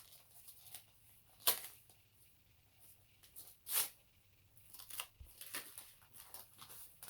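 Taped packaging being torn open by hand. There is a short rip about one and a half seconds in, a longer and louder rip about two seconds later, then light rustling of the wrapping.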